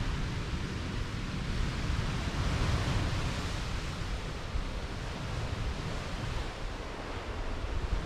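Wind buffeting the microphone, over a steady rush of surf and wind that swells about three seconds in.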